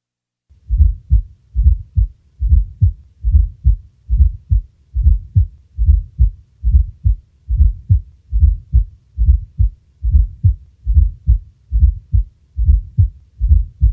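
Heart sounds with a fourth heart sound (S4, atrial gallop): a low extra thud just before each first heart sound, then the second sound, repeating in a steady rhythm a little faster than one beat per second. The S4 is the sign of a ventricle with decreased compliance, or one receiving increased diastolic volume, as the atria contract.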